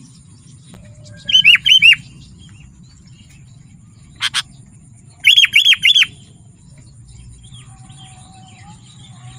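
Sooty-headed bulbul (kutilang) singing: two short loud phrases of three or four quick whistled notes, each note falling in pitch, about four seconds apart. A brief sharp double click falls between them.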